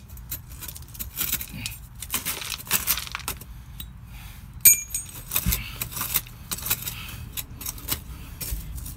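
Irregular scraping and clicking of a metal hand tool digging and working at the foot of a copper down leg, with one sharp, ringing metallic clink about four and a half seconds in.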